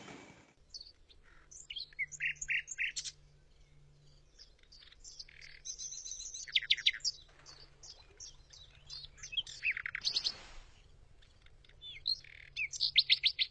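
Small birds chirping in repeated bursts of quick, high calls, loudest about seven seconds in and again near the end.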